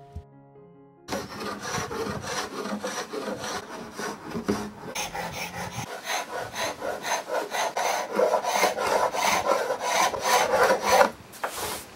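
Hand pull scraper dragged in repeated strokes across a pine top, scraping off an old wax finish. The scraping starts about a second in and grows louder and more regular in the second half, at about two to three strokes a second.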